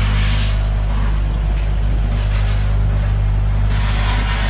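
Septic pumping truck's engine and vacuum pump running with a steady low drone while a suction hose draws out the old septic tank. A rushing hiss of suction swells at the start and again near the end.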